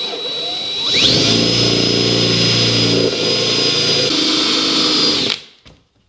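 Cordless drill with a step drill bit cutting a 1 1/8 inch hole through a boat's console panel. The motor whine rises to full speed about a second in and runs steadily, with a lower buzz as the bit cuts, then stops after about five seconds.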